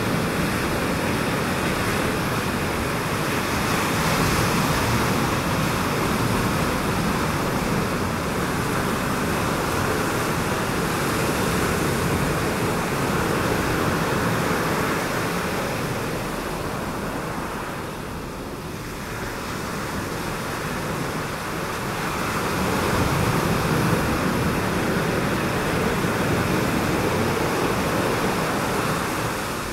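Ocean surf: a steady rush of waves breaking over the reef, swelling and easing slowly, with a lull a little past halfway.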